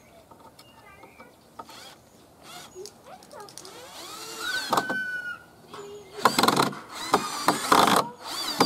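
Cordless drill driving screws into a wooden frame joint: the motor whines up about halfway through, then runs in several short, loud bursts near the end as the screws go in.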